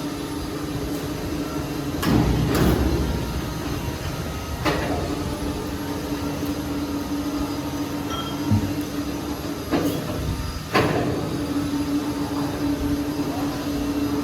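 Sawmill machinery running with a steady hum, broken by several loud knocks and clunks, around two seconds in, near five seconds and twice near ten to eleven seconds.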